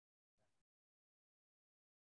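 Near silence: dead digital silence, broken once about half a second in by a faint, brief scrap of noise.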